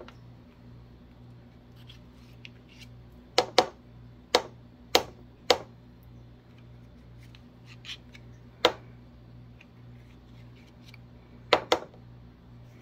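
A spatula scraping thick mayonnaise off an immersion blender's head and out of a plastic blending cup, with a handful of sharp taps and clicks: a cluster about three to five seconds in, one near the middle and a quick pair near the end.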